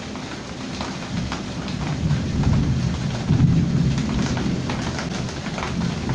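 Heavy rain falling: a steady hiss with scattered close drop hits. A low rumble swells about two seconds in, is loudest around the middle, then eases off.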